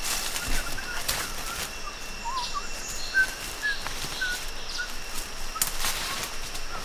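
Footsteps and rustling through jungle undergrowth: leaves and twigs brushing and crackling in scattered bursts. A bird gives a run of short chirps in the middle, over a steady high-pitched drone in the background.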